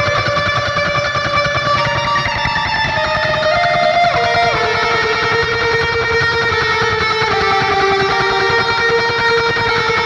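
Eight-string electric guitar in drop G tuning, played through a Line 6 Pod HD500 amp modeller with a metal tone: ringing notes stepping from pitch to pitch, with a change of notes about four seconds in, over a fast, low, chugging pulse.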